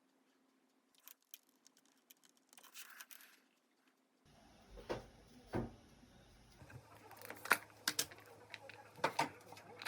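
Scattered light clicks and taps of small objects being handled. A steady low hum comes in about four seconds in.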